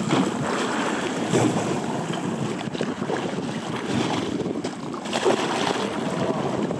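Wind buffeting the microphone over choppy seawater splashing against the boat's hull.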